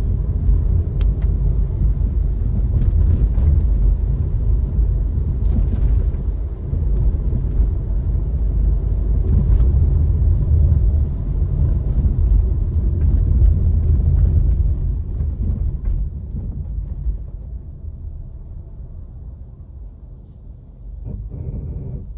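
Car driving: a steady low rumble of engine and road noise that dies down and grows quieter from about sixteen seconds in.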